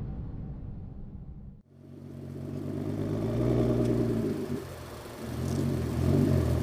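Audi TT 8N 3.2 VR6 engine and exhaust revving: the sound swells up, drops back about three seconds in, then swells again near the end. Before it, an earlier sound cuts off abruptly about a second and a half in.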